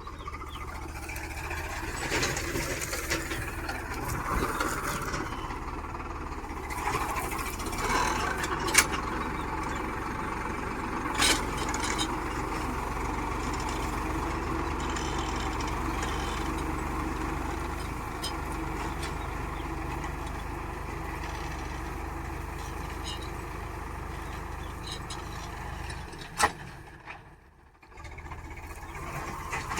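Farmtrac 6055 tractor's diesel engine running steadily, with a few sharp knocks standing out over it and a brief drop in the sound shortly before the end.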